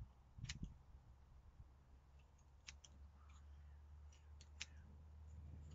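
Scissors snipping ultra-fine insect mesh netting: a few faint, sharp snips at irregular intervals, three of them close together a little past the middle.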